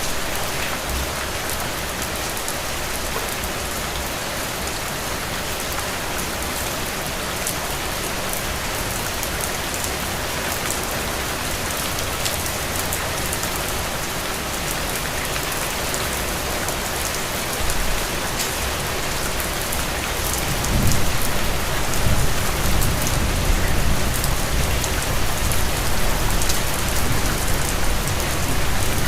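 Steady heavy rain, a dense hiss with fine crackling drops. A deeper low rumble builds up underneath from about two-thirds of the way through.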